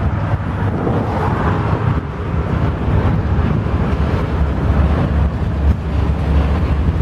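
Freight train of autorack cars rolling past, a steady rumble of steel wheels on the rails.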